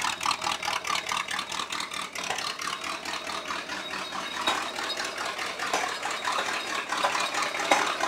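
Chevrolet El Camino engine running roughly at idle, with a rapid even firing pulse and a rattle. The rough running is the sign of ignition timing that is off, as the owner judges it.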